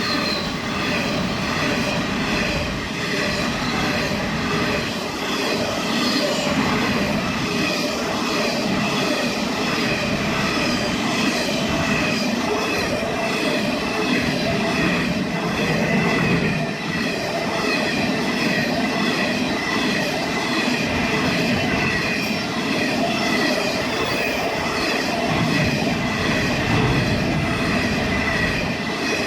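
Freight train passing through a station at speed, its wagons rattling over the rails in a steady, continuous rush, with a steady high-pitched wheel squeal over the top.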